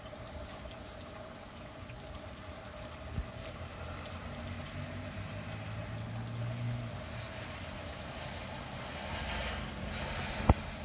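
Steady rain falling on wet pavement, an even hiss. A low hum comes in for a few seconds partway through, the hiss swells near the end, and a single sharp click sounds just before the end.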